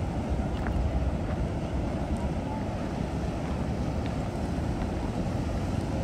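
Steady rush of water pouring over a long, low weir cascade, with wind buffeting the microphone.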